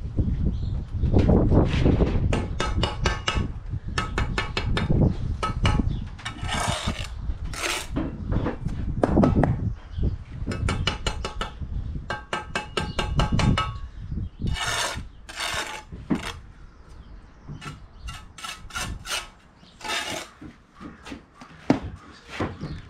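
Steel brick trowel working mortar on a brick course: runs of quick taps of the blade on mortar and brick, with short scraping strokes between them.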